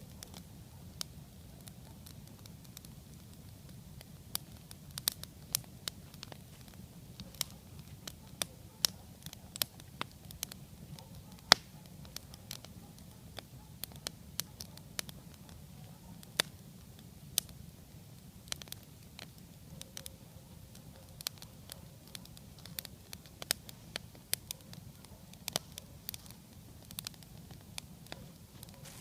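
Log-cabin campfire burning, the wood crackling with irregular sharp pops of varying loudness over a low steady rumble.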